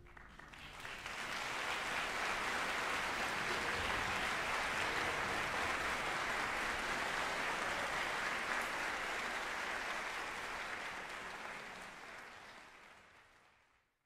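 Audience applauding, building up over the first second or two, holding steady, then fading out near the end.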